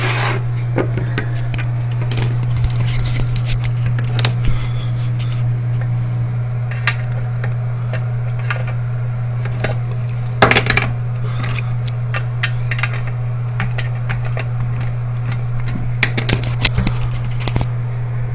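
A toilet tank-to-bowl bolt and nut being worked loose by hand under the tank: scattered small metal clicks and clinks, louder about ten seconds in and again near the end, over a steady low hum.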